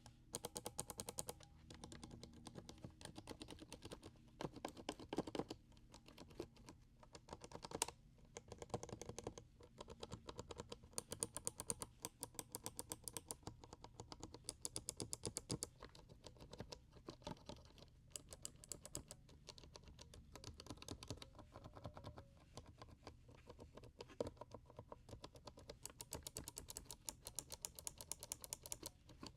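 Rapid typing on a mechanical keyboard fitted with Kailh switches: quick runs of key clicks, the tone of the clicks changing every few seconds as one switch type after another is tried.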